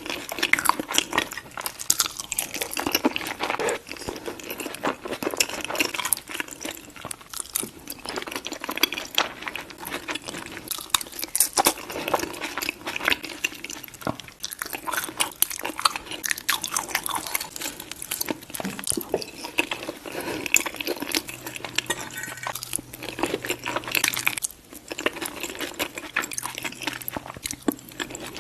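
A person chewing and biting into chili cheese baked fries. It is an irregular, continuous run of crunches and mouth sounds.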